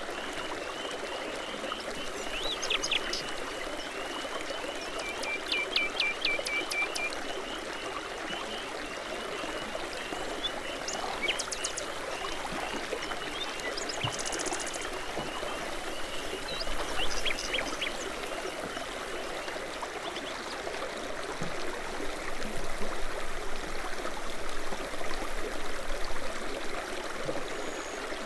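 A babbling brook running steadily over stones, with songbirds chirping at intervals, including a quick run of repeated chirps about five seconds in.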